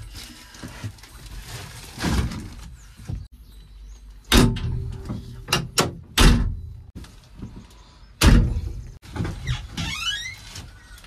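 Cab door and side window of a JCB 3DX Plus backhoe loader being pulled shut and latched: a string of loud slams and metal clunks, the heaviest about four, six and eight seconds in, with a short squeak near the end.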